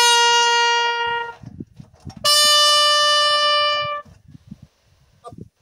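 Bugle call sounded as a funeral final salute: a long held note, then after a short break a higher long held note that cuts off cleanly.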